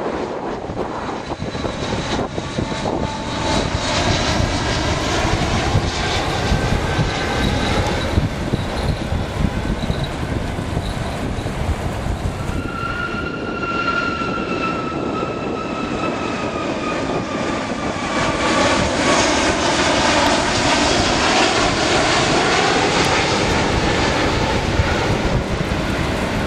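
Jet airliners on final approach passing low overhead, with a steady rumble of jet engines. About halfway through, a Boeing 757's engine whine falls in pitch as it goes over, and the noise swells again near the end.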